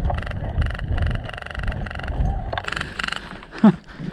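Airsoft electric guns firing several short rapid bursts over a low rumble, then a brief loud cry falling in pitch near the end.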